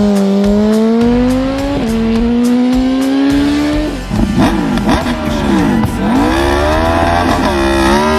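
Large-displacement motorcycle engine accelerating hard. Its pitch drops sharply at a gear change about two seconds in, then climbs again. From about halfway, several engines are heard passing, their pitches sweeping up and down.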